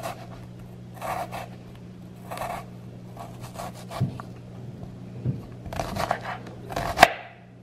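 Chef's knife slicing through a shallot on a cutting board: short runs of crisp cuts and scrapes of the blade on the board, with one sharp knock of the knife against the board about seven seconds in. A steady low hum runs underneath.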